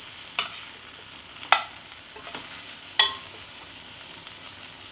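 Potato slices frying in a pan over a low flame, a faint steady sizzle, with three sharp clicks of a utensil striking the pan: about half a second in, at a second and a half, and at three seconds.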